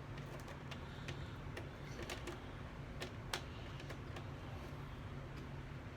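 Faint, irregular clicks and smacks of someone chewing food close to the microphone, over a steady low hum.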